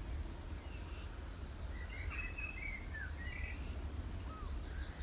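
Wild birds singing in a garden: a few short chirps and whistled notes from about two seconds in, over a low steady rumble.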